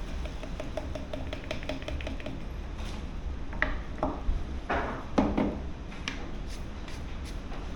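Fishing tackle being handled: a quick run of light ticks, about six a second, then five or so separate sharp clicks and knocks, over a low steady rumble of wind.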